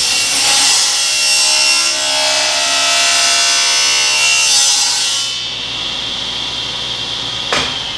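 SawStop table saw blade cutting through a thin board for about five seconds, then spinning free with a steady high whine. A sharp knock near the end, after which the whine starts to fall in pitch as the blade spins down.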